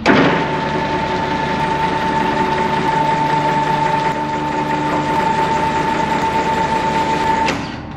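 Two-post car lift's motor running as the lift lowers a car, a steady whine over a hum. It starts abruptly when the down button is pressed and cuts off with a click about seven and a half seconds in.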